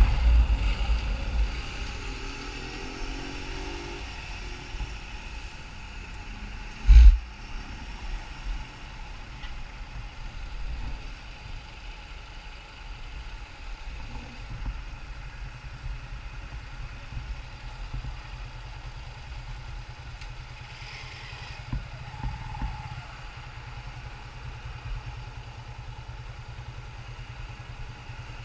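Motorcycle slowing down, wind noise on the microphone dying away, then the engine idling at a standstill with a steady low rumble. A single sharp thump about seven seconds in.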